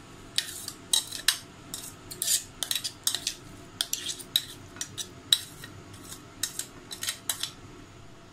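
Steel spoon scraping and knocking ground soybean out of a stainless steel mixer-grinder jar onto a plate: a run of irregular metal-on-metal clinks and scrapes.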